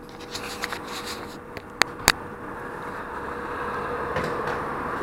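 Subaru Impreza GB270's flat-four engine running through a custom 3-inch exhaust, steady and getting gradually louder. Two sharp clicks come about two seconds in.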